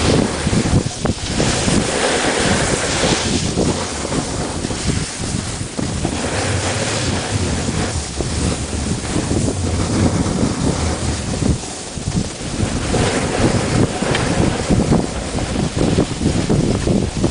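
Wind rushing over the camera's microphone as it moves down a ski slope: a loud, steady rush that swells and eases every few seconds.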